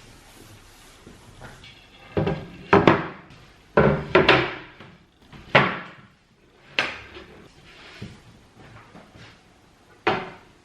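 A series of household knocks and clunks, about seven sharp ones spread over several seconds, each dying away quickly.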